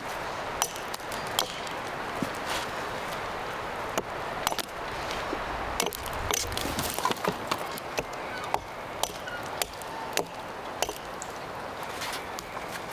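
Hatchet chopping side branches off a felled conifer trunk: a run of sharp, irregular knocks.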